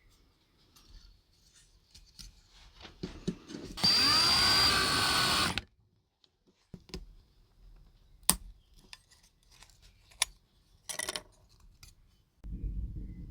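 Small electric drill running for just under two seconds, its whine rising as it spins up, with scattered clicks and knocks of handling around it and a low rumble starting near the end.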